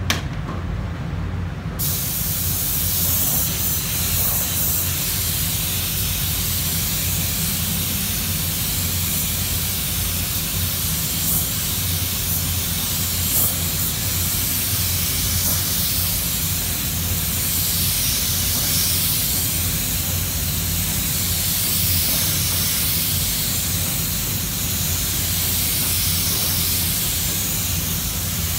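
Compressed-air paint spray gun hissing steadily as it lays down a coat of base colour. The hiss starts about two seconds in, over a steady low hum.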